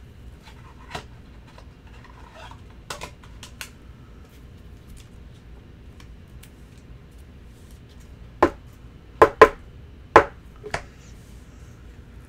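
Trading cards and plastic card holders being handled on a table: a few light taps and rustles, then four sharp clicks or taps close together in the second half.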